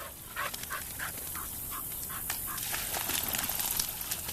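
A dog panting in quick, regular breaths, about three a second.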